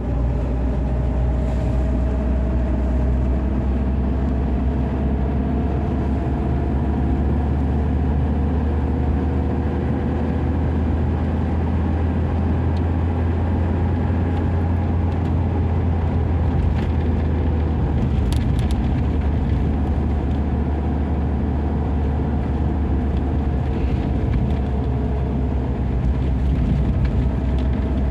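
Lada Niva Travel driving at a steady speed: a continuous low rumble of engine and road noise, with a faint whine that slowly drifts in pitch.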